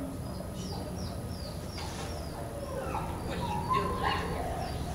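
A dog barking and yipping in short calls, loudest twice at about three and a half to four seconds in, over a steady low hum.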